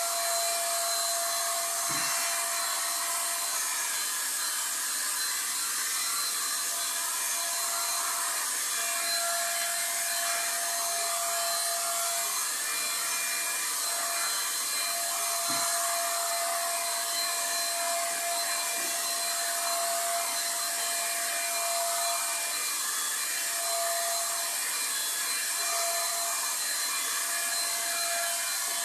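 Paint spray gun spraying a cabinet: a steady airy hiss with a thin steady whine underneath, and a couple of faint knocks.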